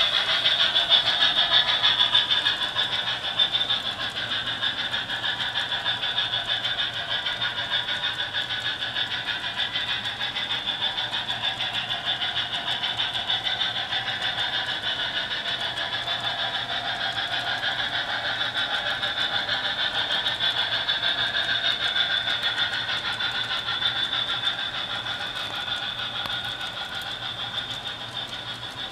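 Model railroad freight train rolling along its track: a steady rolling rattle of many small wheels over the rails, getting quieter toward the end as the cars pass.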